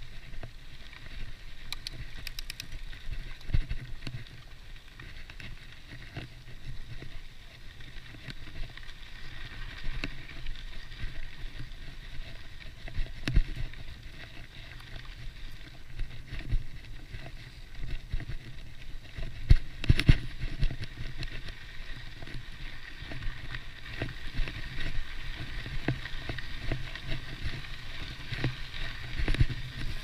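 Mountain bike ridden over a dirt and gravel track: steady tyre crunch and drivetrain noise with the ticking buzz of its Hope Pro 4 rear hub, and sharp rattles and knocks over bumps, the loudest about 13 and 20 seconds in.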